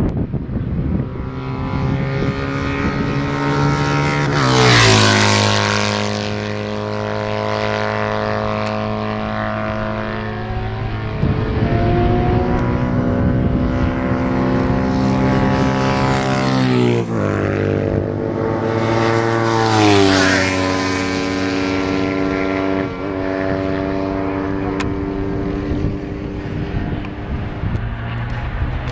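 Classic racing motorcycles passing at speed on a circuit straight. Each engine's pitch drops sharply as it goes by, with close passes about 4, 17 and 20 seconds in. Other engines are heard running steadily in between.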